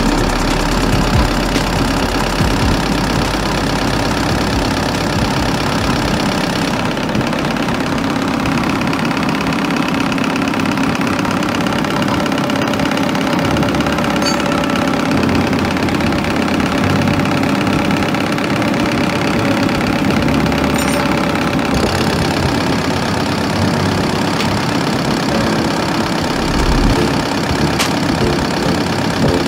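Diesel injection pump test bench running steadily, driving a Denso four-cylinder rotary injection pump while its test injectors spray fuel into the graduated measuring glasses during calibration. The sound is slightly duller from about 7 to 22 seconds in.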